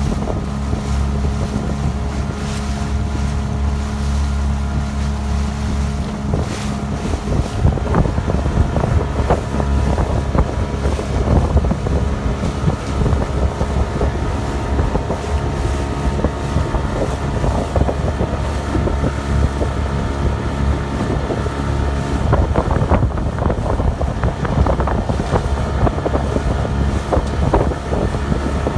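A small motorboat's engine runs steadily while water rushes and splashes along the hull and wind buffets the microphone. The engine note changes about six seconds in.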